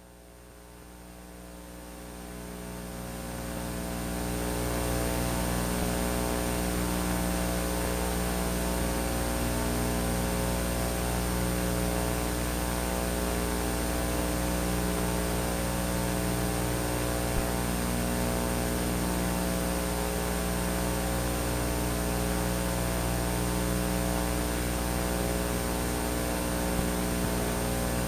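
Steady electrical mains hum, a buzz with many overtones and a thin high tone above it, fading up over the first four seconds and then holding level.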